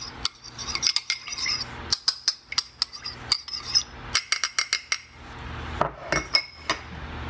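Metal spoon stirring melted butter in a small ceramic ramekin. The spoon clinks against the dish's sides in quick runs of light, ringing taps, with short pauses between the runs.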